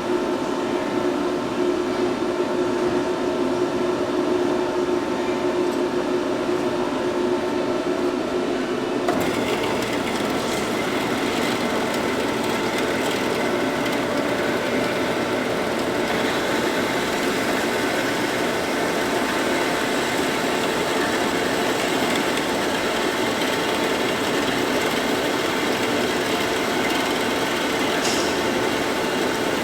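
Machine tool running steadily while machining parts, with a held hum. About nine seconds in, a harsher hiss joins and stays, as if cutting has begun.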